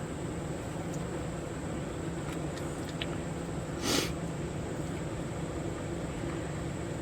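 Steady low hum, with one short burst of hiss about four seconds in and a few faint clicks.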